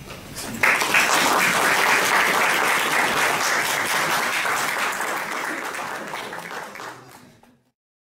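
Audience applauding: clapping breaks out under a second in, holds steady, then dies away and fades out near the end.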